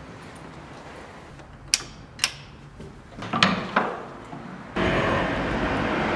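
A metal window catch and wooden sash worked by hand: two sharp clicks half a second apart, then a short rattling clunk. A steady rush of traffic-like background noise then sets in abruptly near the end.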